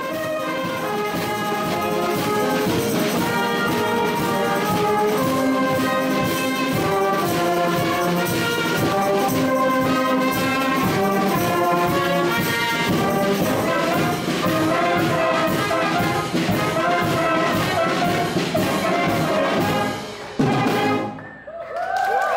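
A Tyrolean wind band of brass (trumpets, flugelhorns, tubas) and clarinets plays a piece, closing with a final accented chord about twenty seconds in.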